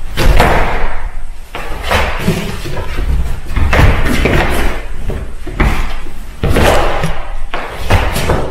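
Irregular heavy thuds and shuffles of feet on a wooden floor as a sparring partner hops in and out of range, with sharper knocks of boxing gloves mixed in, ringing in a bare, echoing room.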